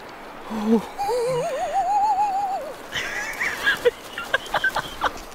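A long, wavering cry that rises in pitch and holds with a quick warble for nearly two seconds, followed by a run of sharp clicks near the end.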